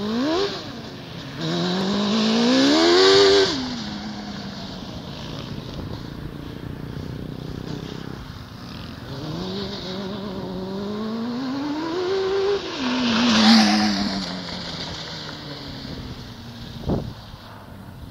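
Honda CBR600 inline-four motorcycle engine in a go-kart, revving hard as the kart accelerates. The engine rises in pitch to two loud peaks, about three seconds in and about thirteen seconds in, and each time falls away sharply as the throttle closes. A single sharp knock comes near the end.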